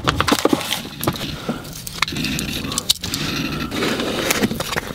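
A small cardboard parcel being slit open with a pocketknife: scratchy scraping of the blade through the tape and cardboard, amid many sharp clicks and rustling as the knife and box are handled.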